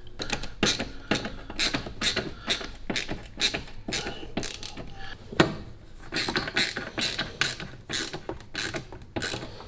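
Ratcheting screwdriver clicking as it drives the screws that fasten a dishwasher's kick plate: a run of sharp clicks, about two to three a second.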